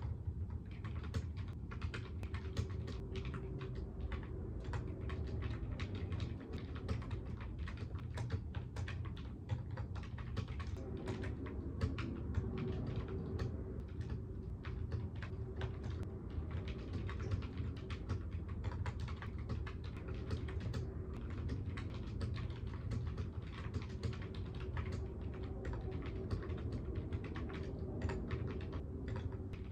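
Typing on a computer keyboard: a steady, irregular run of keystroke clicks, with a low hum underneath.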